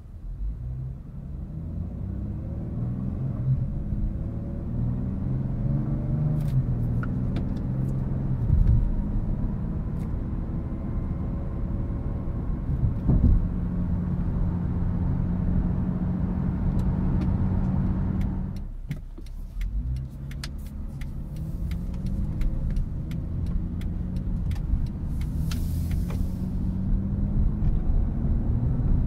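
2013 Acura ZDX's 3.7-litre V6 and road noise heard from inside the cabin while driving. The engine note climbs in pitch in steps as the car accelerates through the gears, holds steady, falls away briefly about two-thirds through, then builds again.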